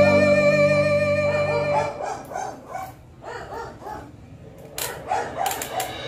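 Background music that drops out about two seconds in, leaving a dog barking in short, repeated yelps, about three a second.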